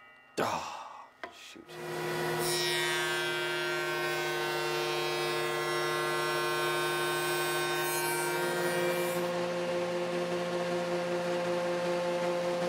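Wood shaper with a coping cutter, spinning up after a short whoosh and then running with a steady, many-toned whine as it cuts the cope on the ends of maple cabinet-door rails. The tone shifts slightly about eight seconds in.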